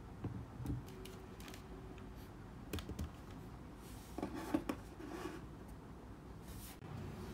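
A few light knocks, taps and clicks as a laptop is set down on an aluminium laptop stand and a keyboard and mouse are laid on a wooden desk. The loudest taps come in a cluster about four seconds in.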